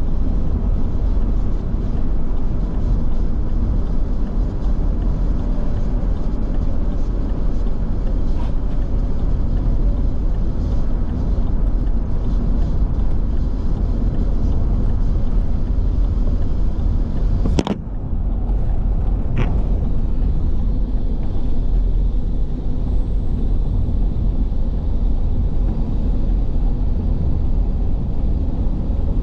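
Steady low rumble of a car's engine and tyres on the road, heard inside the cabin while driving. A sharp click with a brief drop in the noise comes a little past halfway, and a fainter click follows about two seconds later.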